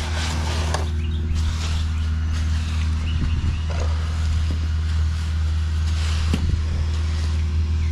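Concrete mixer truck's diesel engine running steadily with a low, even drone during the pour.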